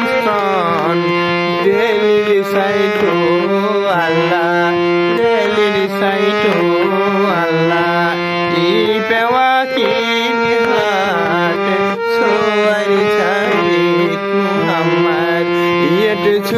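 Harmonium playing a slow melody over held low notes that change every couple of seconds.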